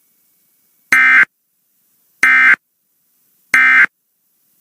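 Emergency Alert System end-of-message code: three short, loud bursts of digital data tones about 1.3 seconds apart, sounded to close the severe thunderstorm warning just read.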